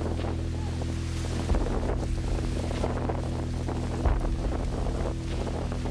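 Wind buffeting the microphone over a steady low mechanical hum, with low bumps about one and a half and four seconds in.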